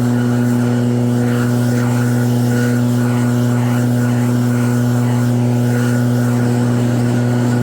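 Snow blower running at a steady speed, a constant even drone with no change in pitch.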